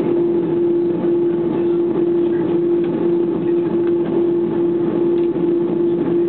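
Airplane engines heard from inside the passenger cabin: a steady hum over a continuous rushing noise, unchanging in pitch and level.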